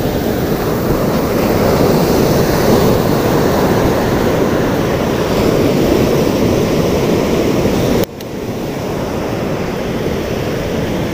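Surf breaking and washing up a sandy beach, a steady loud rush, with wind on the microphone; the sound drops sharply about eight seconds in, then comes back.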